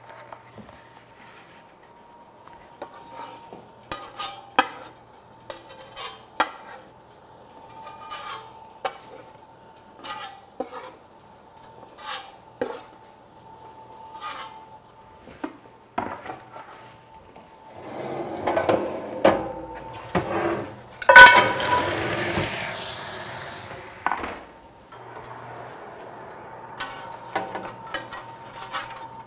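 Metal spatula scraping and tapping on a wooden board and baking stone as bagels are slid into the oven, a series of light clicks and knocks. About 18 seconds in, ice cubes rattle into a hot cast iron pan and hiss into steam for a few seconds, the loudest part, before it cuts off suddenly. A faint steady hum runs underneath, and more spatula clicks and scrapes come near the end.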